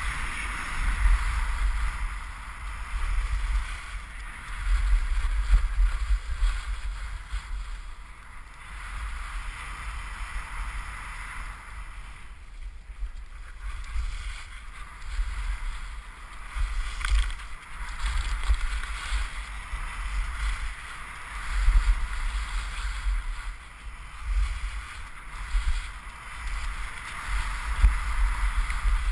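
Wind buffeting a helmet-mounted GoPro's microphone during a ski descent, a low rumble that swells and fades in gusts, over the steady hiss of skis sliding on snow.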